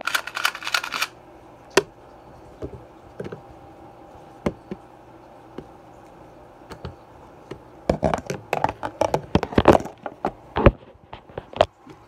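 Plastic 3x3 speedcube clicking as its layers are turned, with a few scattered clicks and knocks of handling, then a fast run of rapid turning clicks from about eight seconds in.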